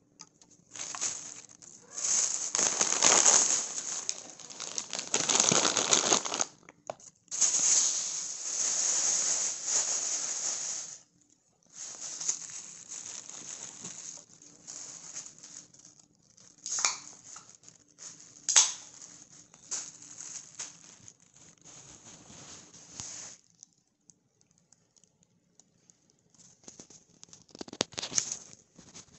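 Close rustling and crinkling handling noise, loud for the first ten seconds, then softer, with a couple of sharp clicks, and one more short rustle near the end.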